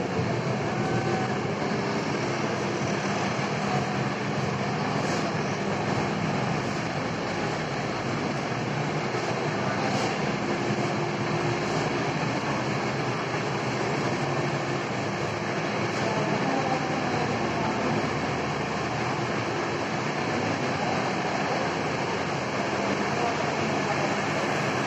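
Steady rumbling noise with faint voices in the background.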